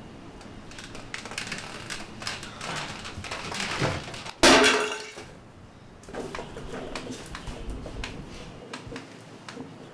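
Scattered clicks and knocks of things on a shelf being handled, then about four and a half seconds in a large metal family-pack tin hits the tiled floor with one loud crash and a short ringing clatter.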